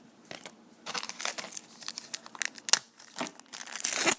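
Foil trading-card pack wrapper crinkling and tearing, a run of short rustles that grows densest near the end.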